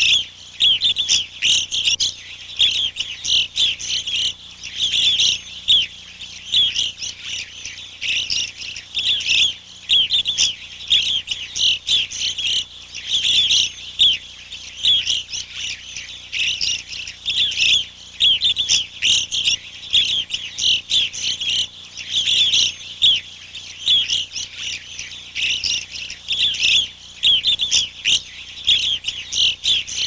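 A flock of small songbirds chirping continuously, many short overlapping calls a second with no pause.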